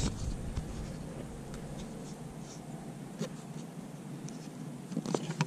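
Fingers rummaging and scratching through the dry bedding in a plastic worm cup, with scattered small rustles and ticks. A few louder knocks come about five seconds in.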